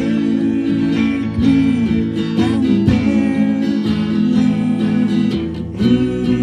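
A band playing live, launching straight into a song on the count: strummed guitar chords over a steady beat. It starts with a sharp attack on the first beat.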